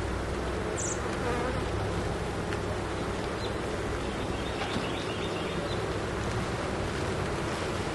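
Honeybees humming and buzzing steadily around an open hive during a frame inspection.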